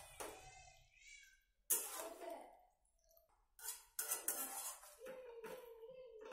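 Metal spatula stirring chicken in a steel pot, scraping and clattering against the pot in a few sharp strokes, with a drawn-out wavering tone near the end.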